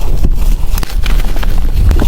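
Blocks of gym chalk crumbled and crushed between the fingers close to the microphone: a quick run of dry crunches and crackles over a low rumble.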